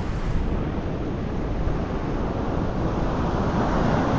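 Wind rumbling on the microphone over surf washing on the beach, the wash swelling a little near the end.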